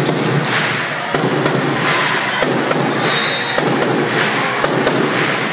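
Echoing gymnasium sound of a basketball game: a basketball bouncing and players' feet thumping on the hardwood floor as short sharp knocks, over a steady background of crowd voices. A brief high squeak about three seconds in.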